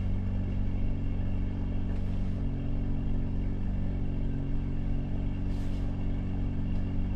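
Vehicle engine running steadily, a low, even hum that holds one pitch throughout, with a faint brief hiss about two seconds in and again near the end.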